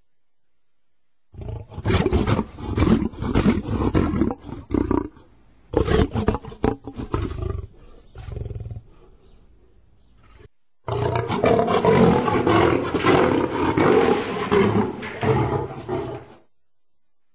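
Lion roaring in three bouts: a run of loud roars and grunts starting about a second in, a second bout that tails off into weaker grunts, then after a brief break a longer, unbroken roar that cuts off sharply near the end.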